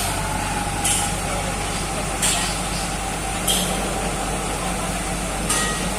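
A heavy diesel machine's engine running steadily, with four or five short, sharp hisses a second or so apart.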